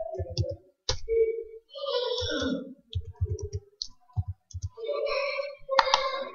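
Computer keyboard being typed on: runs of short key clicks at an uneven pace.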